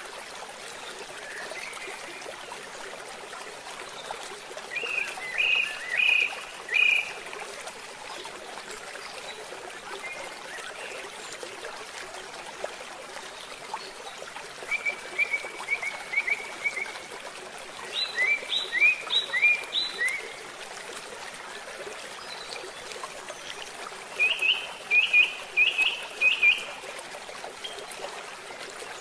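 Water pouring from a culvert pipe into a shallow channel, a steady rushing flow. Over it a bird calls in four bouts of short repeated chirps, the loudest sounds here.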